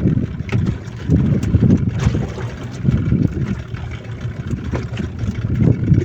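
Small motorboat under way at trolling speed, its motor and the water mixed with heavy wind buffeting on the microphone that comes in uneven gusts.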